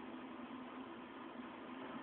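Steady faint hiss of background noise with no distinct events; no hiccup is heard.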